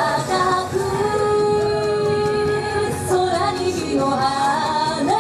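Recorded yosakoi dance music with a woman singing the melody, including one long held note lasting about two seconds.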